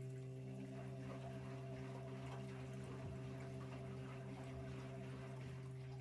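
Candy front-loading washing machine running a component check in its diagnostic test mode: a steady low electrical hum, with water running in the drum.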